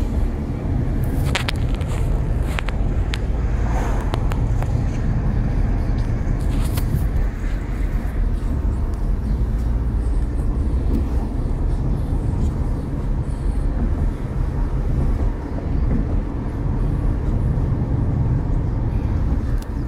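Interior noise of a Nissan X-Trail being driven: a steady low rumble of engine and tyres on the road. A few short clicks come in the first several seconds.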